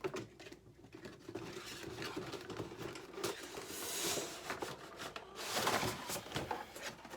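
Cardboard and plastic action-figure packaging being handled: continuous rustling, crinkling and light tapping, with louder rasping swells about four seconds in and again near six seconds.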